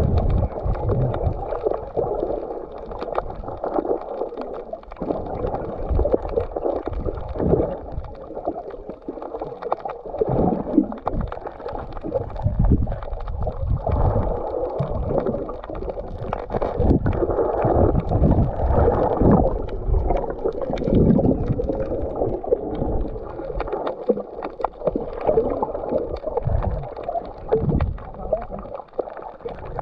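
Muffled underwater sound picked up through an action camera's waterproof housing: water sloshing and gurgling against the case, with irregular low thumps and rumbles as it moves through the water.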